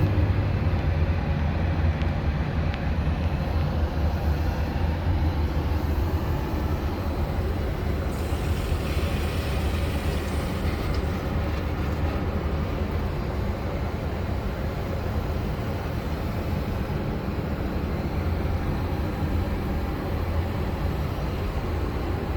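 Steady low drone of a Boeing 737-800's CFM56 engines and airflow heard inside the passenger cabin, with a faint hiss swelling briefly about a third of the way in.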